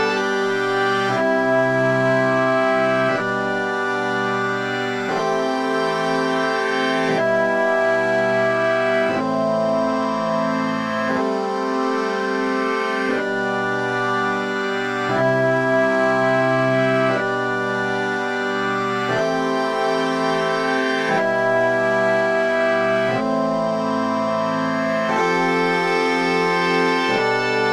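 Synthesizer playing a sequence of sustained, organ-like chords, each held about two seconds before changing to the next.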